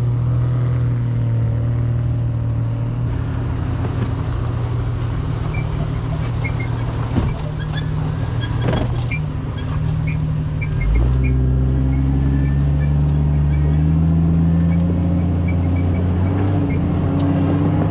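Off-road 4x4's engine running on the trail, with a couple of short knocks in the middle. About eleven seconds in the engine note deepens and gets louder, then climbs slowly in pitch as it pulls harder.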